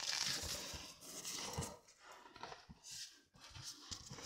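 Clothing and gear rustling and scraping against the rock of a narrow fissure as a caver squeezes through, with a few soft knocks.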